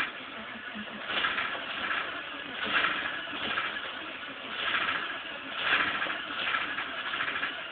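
Engine being cranked that tries to catch but does not start, its sound coming in uneven swells about once a second.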